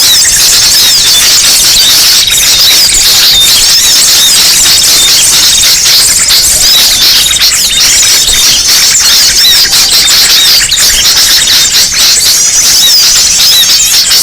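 A loud, dense chorus of many small birds chirping and twittering at once, with quick high calls overlapping without a break: a bird-lure (pikat) recording of noisy small birds.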